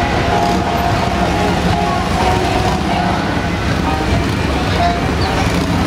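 Cruiser and touring motorcycle engines running at idle in a steady low rumble, with crowd chatter over it.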